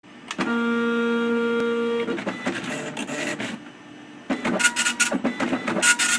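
Apple ImageWriter II dot-matrix printer printing. A steady buzzing pass comes first; then about two seconds in it breaks into an irregular rattle, and about four seconds in it turns into louder, dense clicking and chattering.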